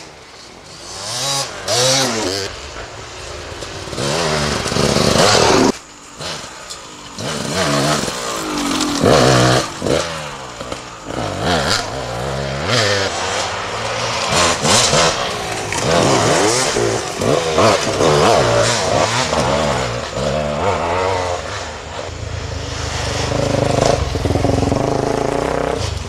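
Several dirt bikes riding past one after another, their engines revving up and down with the throttle as each one comes by, with short lulls between passes.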